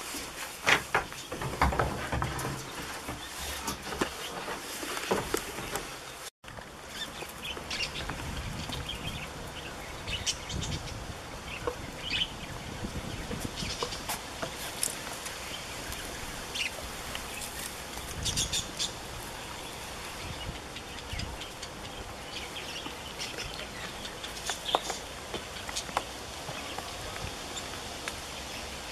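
Goat kids scrambling through straw and over wood, with dense knocks and rustles for the first few seconds. Then outdoor farmyard ambience with scattered short chirps of small birds and occasional low thumps of hooves and handling.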